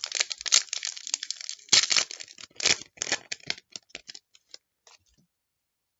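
A trading card pack's wrapper crinkling as it is opened, and the cards being handled and flicked through with sharp little clicks that thin out and stop about five seconds in.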